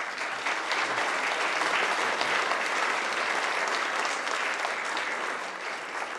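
Audience applauding, a steady round of clapping that fades out near the end.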